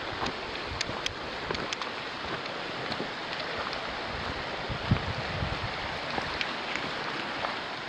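Steady rushing of river rapids, with footsteps crunching on a gravel trail over it and a louder thump about five seconds in.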